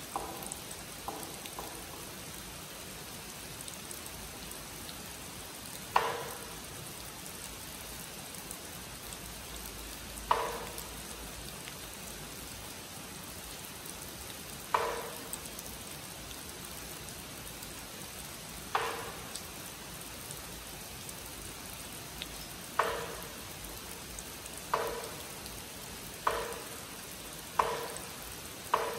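Wooden clapper struck in single, resonant knocks to call monks to zazen: about four seconds apart at first, then coming faster and faster to about one a second near the end. Steady rain hisses underneath.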